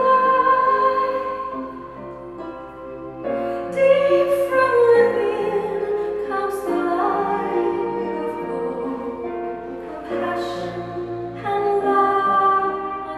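A song with a woman singing long, held notes that glide between pitches, over an instrumental accompaniment.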